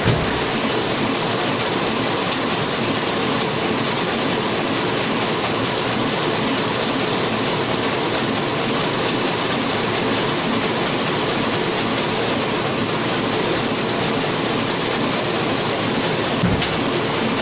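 Heidelberg single-colour sheetfed offset printing press running steadily with a continuous dense mechanical clatter. A brief knock comes right at the start and another near the end.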